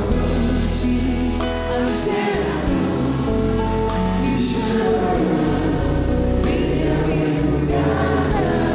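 Live band playing a Catholic worship song, held melody notes over a steady bass line, with voices singing along.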